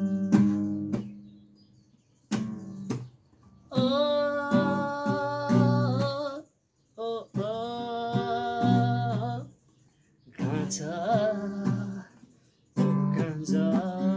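A man singing to his own strummed Epiphone acoustic guitar: a few strums at first, then sung phrases of long held notes separated by short pauses.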